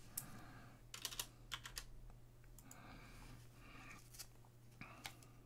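Faint, scattered light clicks and soft rustling from hands at work: a quick run of small clicks in the first two seconds, a soft rustle in the middle, and one more click near the end.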